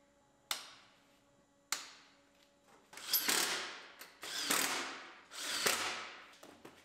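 Two sharp clicks, then three longer rasping strokes of about a second each, the sound of a ratchet wrench working fasteners on a truck's front bumper parts.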